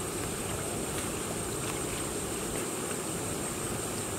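Light splashing of feet wading through shallow muddy creek water, over steady outdoor wind noise and a continuous high-pitched insect drone.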